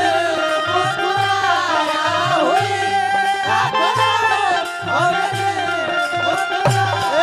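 Instrumental Bhojpuri folk stage music: a harmonium melody over a hand drum beating a steady rhythm of deep strokes, about two a second.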